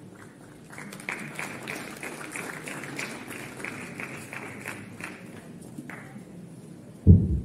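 Audience clapping, starting about a second in and dying away after about five seconds. Near the end, two loud low thuds of the lectern microphone being handled.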